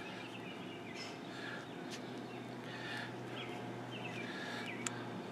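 Small birds chirping repeatedly in the background over a low steady hum, with one sharp click a little before the end.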